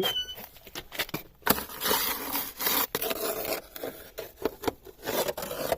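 Scraping and rubbing with many sharp knocks as the door of a wood-fired bread oven is pulled open. The scraping becomes denser about one and a half seconds in, and a short squeak comes right at the start.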